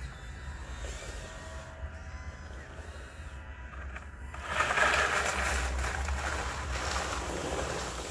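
Radio-controlled Bruder Volvo wheel loader with a faint electric motor whine, then, about four and a half seconds in, a louder gravel crunch and scrape as it drives its lowered bucket into the gravel pile. The crunching fades near the end.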